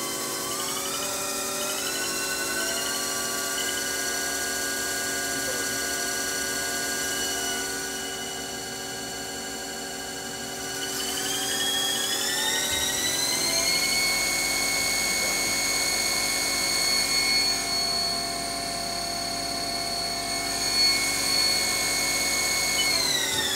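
Haas ST-10 CNC lathe spindle running with a motor whine that rises in pitch as the spindle speeds up over the first two seconds. The whine steps up again about eleven seconds in, holds, and falls away near the end as the spindle slows down.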